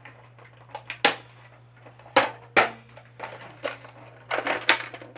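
Plastic clicks and clacks from a Nerf blaster being handled and worked: a few scattered knocks, two sharp snaps about two and a half seconds in, and a quick cluster of clatter near the end.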